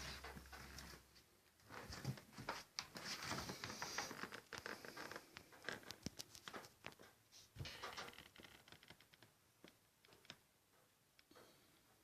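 Irregular scratching, rustling and light clicks, thickest from about two to eight seconds in, then thinning out.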